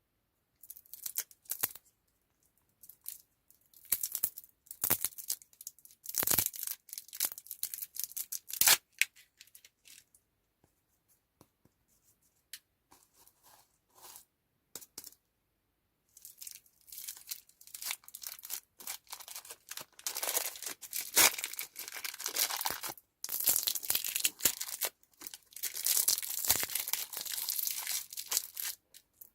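Plastic candy wrappers and packaging crinkling and tearing in irregular bursts as sweets are unwrapped. After a few quiet seconds before the middle, the crinkling becomes dense and continuous.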